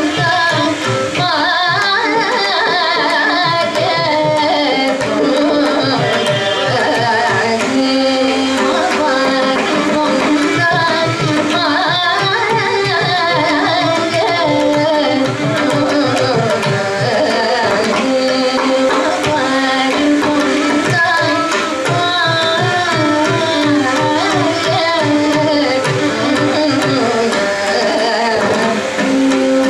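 Carnatic classical music in raga Tarangini: a woman's voice singing ornamented, gliding melody with a violin shadowing her line and mridangam drumming in dense, quick strokes underneath.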